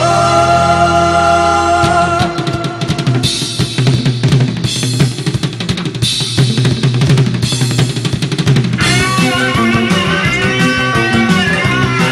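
Rock and roll band music: held chords for the first two seconds, then a stretch carried mainly by the drum kit, bass and snare drum hits, before a bending melodic line comes back in near the end.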